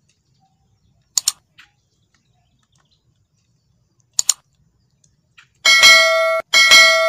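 Subscribe-button sound effects: a quick double mouse click about a second in and another about four seconds in, then a bell chime struck twice near the end, the second strike ringing on.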